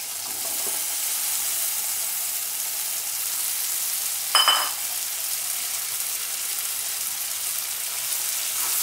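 Prawn masala sizzling in oil in a karahi as Malabar spinach seeds and potatoes are stirred in with a metal spatula. About four seconds in, the spatula strikes the pan with a single ringing clink.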